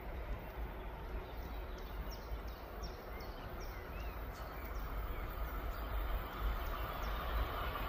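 A small bird calling a run of short, downward-sliding chirps, about two a second, over steady outdoor noise and a low wind rumble on the microphone. Near the end the noise of an approaching train builds.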